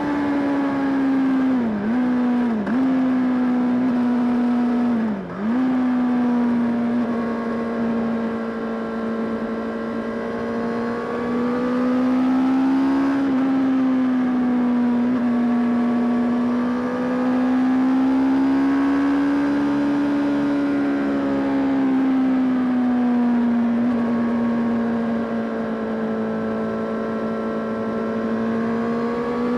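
Honda CBR600RR's inline-four engine running under way at a fairly steady, high engine speed. Its pitch drifts gently up and down, with three quick dips about two, three and five seconds in.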